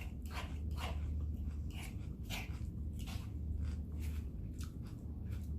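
Close-up chewing of crunchy salad, a steady run of crunches about three a second over a low steady hum.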